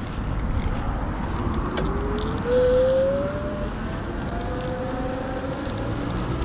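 Electric bike motor whining as the bike rides along, its pitch rising steadily as it picks up speed and loudest about two and a half to three seconds in, over wind rumble on the microphone.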